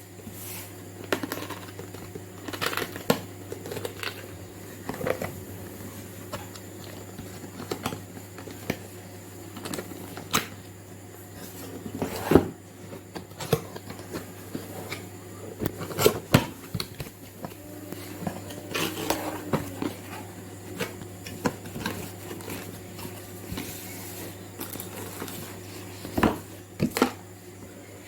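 Irregular clicks, taps and light knocks, with a few louder ones, over a steady low hum.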